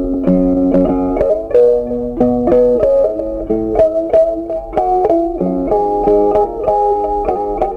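Background music: an instrumental tune of plucked notes and chords, the notes changing every half second or so.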